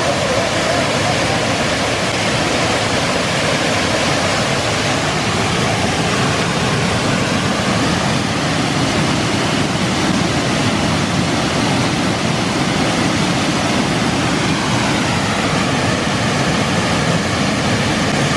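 Steady rush of a waterfall and the shallow river cascading over rocks below it.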